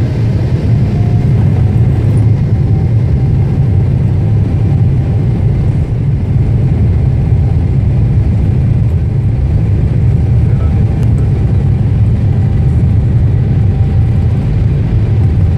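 Boeing 747-8i's four GEnx-2B turbofans and airframe heard from inside the cabin over the wing during the takeoff roll: a loud, steady low rumble that builds a little in the first second and then holds.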